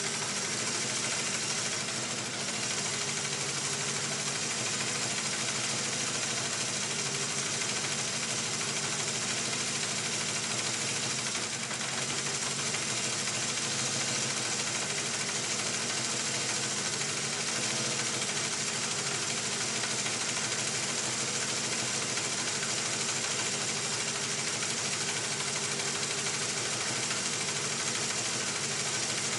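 Honda CB350F inline-four engine running steadily at idle with a fast, even ticking clatter. The owner suspects an exhaust leak as the cause of the noise.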